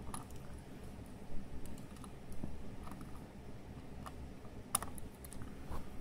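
Scattered small clicks and taps of hand work on a laptop's plastic case while its tiny screws are put back in, about seven in all, the sharpest a little before the end.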